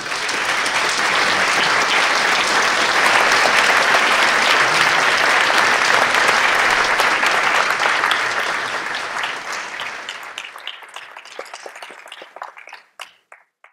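Audience applauding. The clapping builds within the first second or two, holds, then thins out to scattered single claps and stops near the end.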